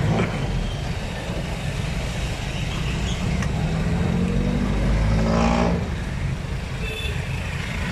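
Road traffic: a motor vehicle's engine running over a steady low rumble, growing louder and rising in pitch as it passes, loudest about five seconds in.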